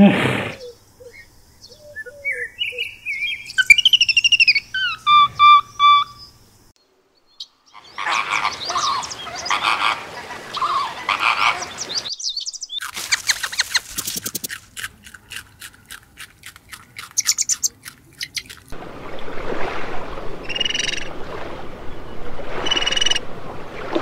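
A run of different animal calls one after another: high chirps and gliding whistles in the first few seconds, then harsh noisy calls, then a fast train of clicks, and more noisy calls near the end.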